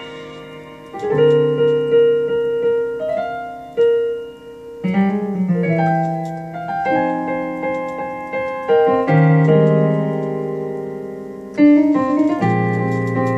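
Piano sound from a Yamaha MOX8 synthesizer keyboard played solo: slow chords struck and left to ring, a new chord every couple of seconds, with melody notes above them.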